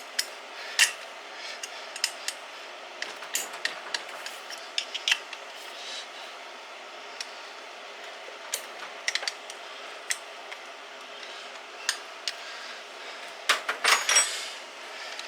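Hand tools and metal engine parts clinking and clattering now and then during a small engine teardown, with a quick flurry of clinks near the end.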